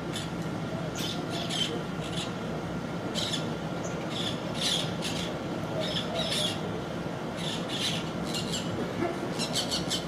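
Parakeets giving short, harsh squawking calls, repeated every second or so and coming in a quick run near the end, over a steady low hum.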